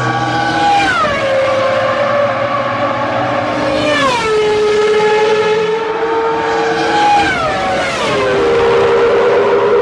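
Ferrari 333SP sports prototypes' high-revving V12 engines running flat out as the cars pass one after another. The pitch drops sharply as each car goes by, three times: about a second, four seconds and eight seconds in.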